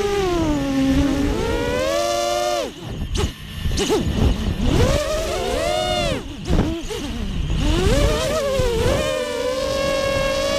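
ImmersionRC Vortex 285 FPV racing quadcopter in flight, its four brushless motors and propellers whining in a pitch that rises and falls with the throttle, over a rushing noise. The throttle is cut sharply about three seconds in and again about six seconds in, and the motors spin back up each time.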